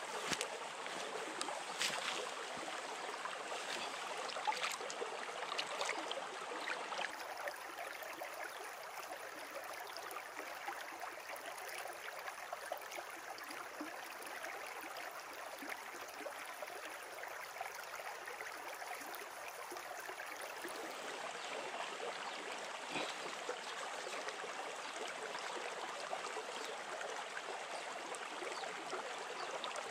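A small mountain stream running steadily: an even rush and trickle of water, with a few faint knocks.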